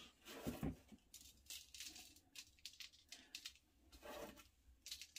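Faint, irregular scratchy rustles and light ticks of loose sequins being gathered and sprinkled by hand over a paper page.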